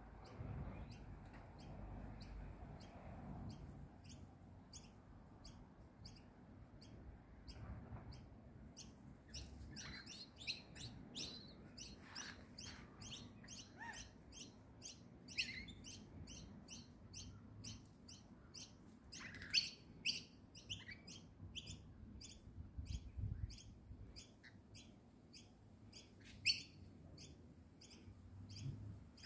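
Birds calling in a flowering tree where rainbow lorikeets are feeding: a steady run of short high chirps, about two a second, broken by louder sharp screechy calls, the loudest about twenty seconds in and again near the end.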